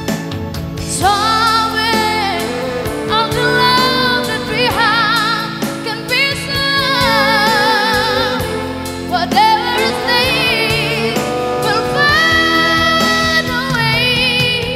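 Background music: a sung melody with long held notes that waver in pitch, over instrumental accompaniment.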